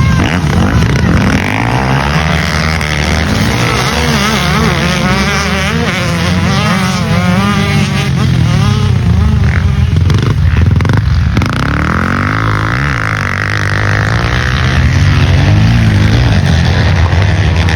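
Motocross bike engines revving hard and backing off over and over, the pitch rising and falling as the bikes accelerate and shift.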